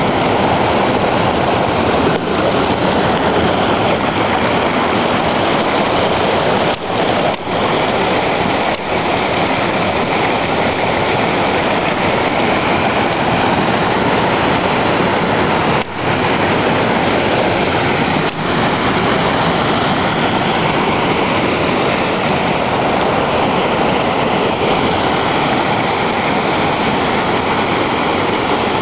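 Loud, steady rush of the Gooseberry River's water pouring and foaming over rock ledges close by, dipping briefly a few times.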